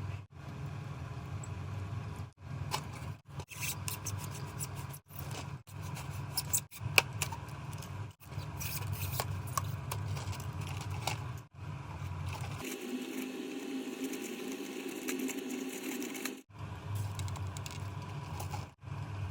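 Short cut-together bits of hand work on foam: scattered scrapes and sharp clicks over a steady low hum. About two-thirds of the way through there is a stretch of several seconds with a different, mid-pitched sound and no hum.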